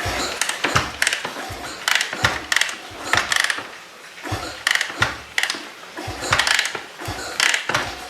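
Honda CRF250 four-stroke single being turned over by hand or kickstarter with the decompressor in use, without starting: a string of uneven metallic clicks and clanks, some ringing briefly.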